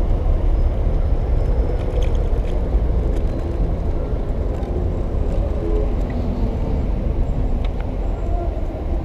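Outdoor street ambience: a steady low rumble with people talking faintly in the background and a few light clicks.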